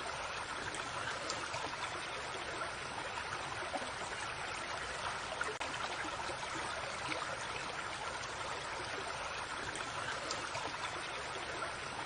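Creek water running steadily, a continuous babbling trickle.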